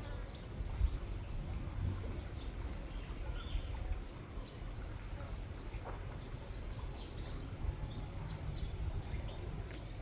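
Small birds chirping, many short high calls scattered throughout, over a steady low outdoor rumble.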